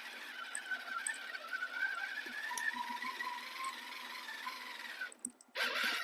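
Redcat Scout RC crawler's electric motor and gear drivetrain whining while it drives, over a steady hiss, the pitch wavering and dropping partway through. About five seconds in the whine drops out, followed by a short loud burst of noise near the end.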